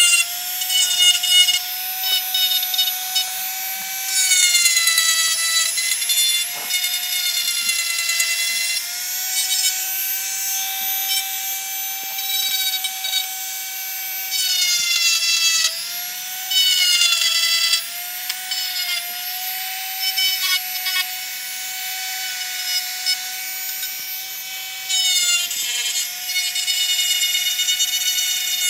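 High-speed handheld rotary tool with a small orange grinding stone running with a steady high whine. Its pitch dips briefly each time the stone is pressed into the work, several times over.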